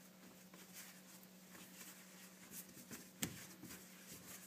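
Faint soft rubbing and pressing of bread dough being kneaded by hand on a floured table, over a steady low hum, with one sharp tap about three seconds in.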